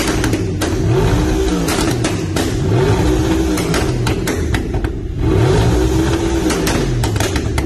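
Audi R8 with a stage 1 tune and decat exhaust revved repeatedly at a standstill, the engine note rising and falling several times, with bursts of pops and crackles from the exhaust as the revs drop.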